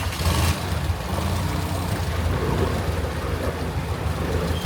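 Longtail boat engine running steadily with a low, even drone. A short hiss comes right at the start.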